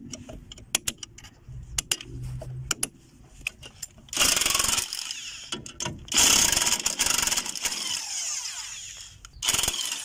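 Light metal clicks and taps as the lock tabs on the steering-arm bolts are bent back. Then a power tool runs in two bursts, a short one about four seconds in and a longer one of about three seconds, undoing the bolts that hold the steering arm to the front steering knuckle of a VAZ 2102.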